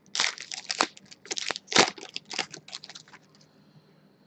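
Silver foil trading-card pack wrapper being torn open and crinkled by hand: a quick run of irregular sharp crackles that dies away about three seconds in.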